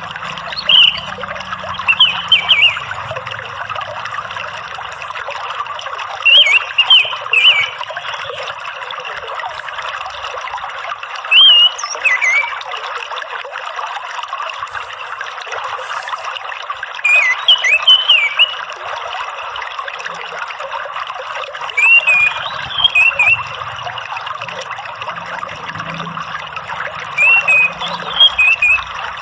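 Orange-headed thrush singing in short, loud whistled phrases, about every five seconds, over a steady trickle of running water.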